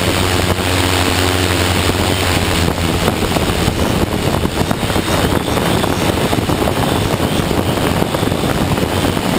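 Tarot 650 multirotor drone's electric motors and propellers humming steadily in flight. About two seconds in, the hum breaks up under a loud, gusty rush of wind on the onboard camera's microphone.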